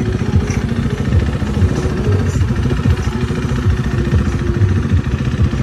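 KTM 390 Duke's single-cylinder engine idling steadily through an Arrow Pro Race Nichrom slip-on exhaust with the baffle removed, a loud, even low throb.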